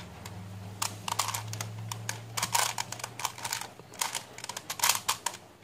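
Face-turning octahedron twisty puzzle being turned by hand through a sequence of moves: a quick, irregular run of plastic clicks and clacks as its faces are twisted, over a steady low hum.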